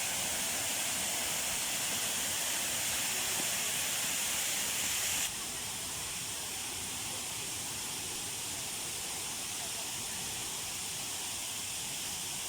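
Steady hiss and rush of falling water from a waterfall, dropping suddenly to a lower level about five seconds in.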